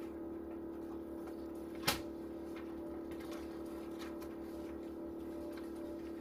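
Steady hum of a machine running in the room, with faint rustling of paper pages and one sharp click about two seconds in.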